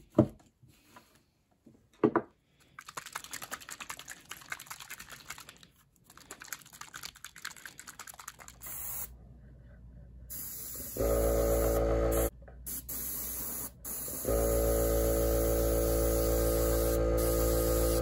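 Two sharp knocks as the lure is handled on the bench, then intermittent hiss of an airbrush spraying paint. About eleven seconds in, a small airbrush compressor starts with a steady hum, stops briefly, and runs again while the airbrush hisses.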